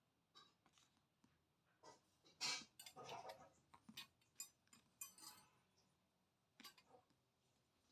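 Scattered light clinks and knocks of a hand mixer grinder's parts being handled and fitted together, with a louder cluster of clatter about two and a half to three and a half seconds in.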